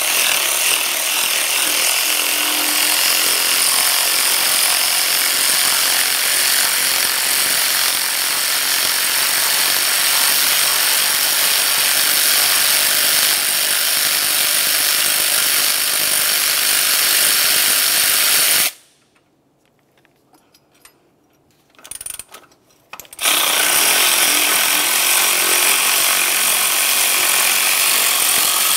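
A handheld power tool with a 13 mm socket running steadily as it backs out long bracket bolts. It stops about two-thirds of the way through, with a few light clicks and a short blip, then runs again for the last few seconds.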